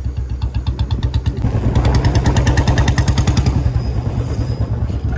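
Royal Enfield Bullet's single-cylinder engine running under way, its exhaust thumping about ten times a second. The thumps grow louder about a second and a half in and ease off slightly near the end.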